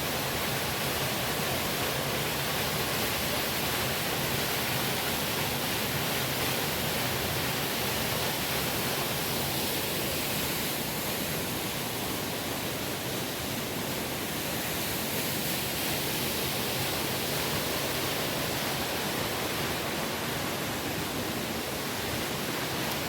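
Rushing river water, a steady, even rush with no breaks.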